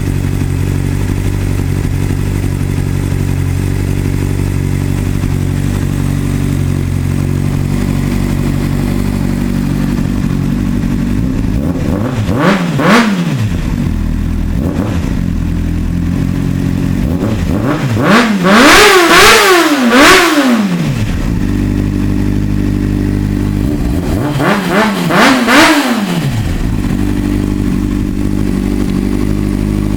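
2003 Honda CBR600RR's inline-four engine idling steadily through a full Yoshimura exhaust system, revved in quick throttle blips. There is a short blip about twelve seconds in, a louder run of several revs around eighteen to twenty seconds, and a couple more blips near twenty-five seconds.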